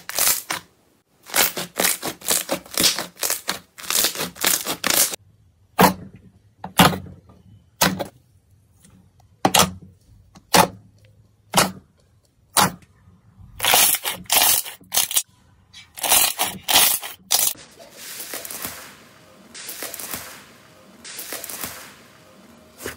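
Slime being pressed and squeezed by hand, with rapid runs of sharp pops and crackles as trapped air bursts, then single pops about a second apart. Near the end it turns to a softer wet squishing that comes and goes about once a second.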